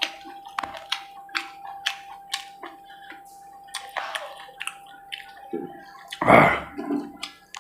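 Close-miked wet chewing and lip-smacking of a person eating chicken gizzard and liver with naan: many short sharp smacks and clicks, with one louder, fuller mouth noise a little after six seconds in.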